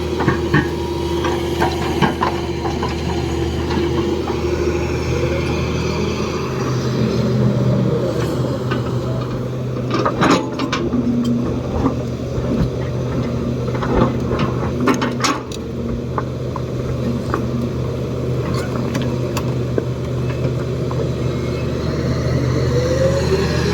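Heavy diesel engine of earthmoving machinery running steadily, its pitch stepping up about six seconds in, with a few sharp knocks around the middle.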